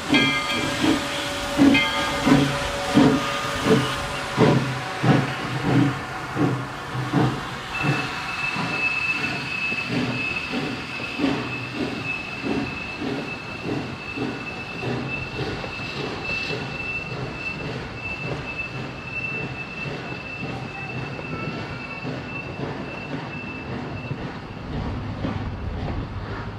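Virginia & Truckee No. 25, a 4-4-0 steam locomotive, chuffing at about one and a half exhaust beats a second as it pulls its train away, the beats fading over the first eight seconds. Then the wooden passenger cars roll past with a steady high wheel squeal and a soft rhythmic clicking over the rail joints.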